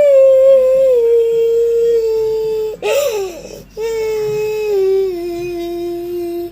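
A child's voice drawing out long, wailing notes, each settling a little lower in pitch, with a noisy gasping breath about three seconds in.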